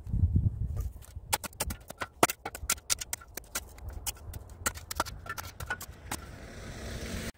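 Dull thuds, then a quick irregular run of sharp knocks and clicks, some with a short metallic ring: a metal hand hoe chopping into soil and striking stones and blocks. About a second before the end comes a rasping noise that cuts off suddenly.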